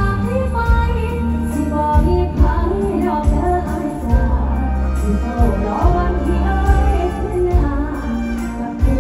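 A woman singing a Thai mor lam song live into a microphone over a band with heavy bass and drums, amplified through stage speakers.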